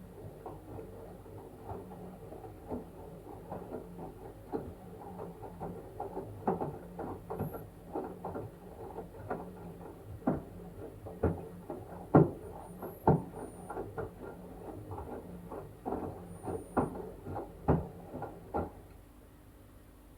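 Washing machine drum tumbling a wet blanket during the wash: a low motor hum under irregular slaps, knocks and sloshes as the load drops inside the drum. The tumbling stops near the end as the drum pauses.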